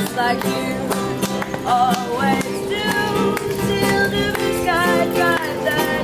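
Acoustic guitar music, quickly strummed, with a melody line wavering with vibrato above it.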